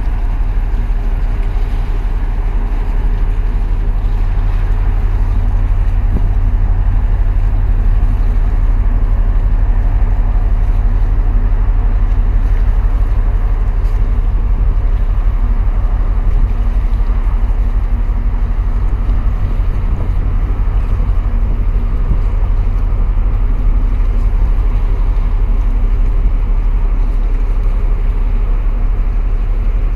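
Wind buffeting the microphone in a steady low rumble, over the steady drone of a large container ship passing close by and water washing against the concrete breakwater blocks.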